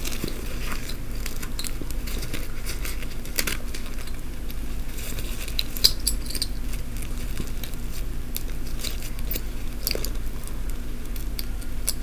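Close handling of a bag as a pin is fastened to it: scattered light clicks and rustling, with keychains clinking, and one sharper click about six seconds in. A steady low hum runs underneath.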